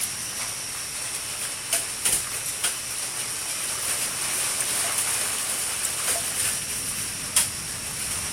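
Light rain falling with a steady high hiss, with a few sharp taps of drops or knocks scattered through it.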